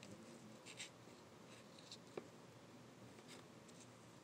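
Faint scratching of a white plastic fork scraping and picking through fried rice in a foam takeout container, a few short scrapes with a light click about halfway through.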